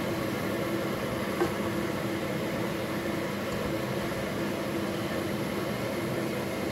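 Kitchen range hood fan running steadily with a low hum, under the soft sound of a wooden spoon stirring shredded cabbage in a frying pan, with one light knock about a second and a half in.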